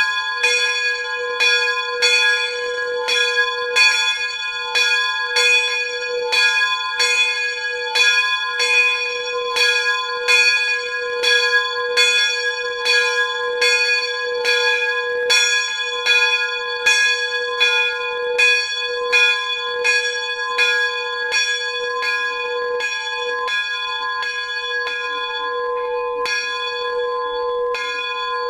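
Steam locomotive bell from Sierra Railroad #24, swung by hand on its yoke and clanging in a steady rhythm of about three strokes every two seconds, rung the way a fireman would have. Near the end the strokes stop and the bell rings on.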